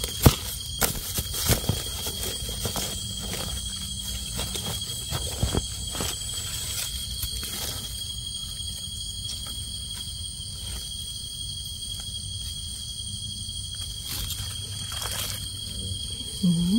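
Steady, high-pitched drone of forest insects, with rustling and sharp clicks of dry leaf litter and twigs being stepped on or handled during the first several seconds.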